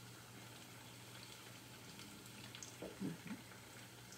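Faint, steady sizzle of sweet-plantain fritters frying in oil in a pot, with a couple of short low sounds about three seconds in.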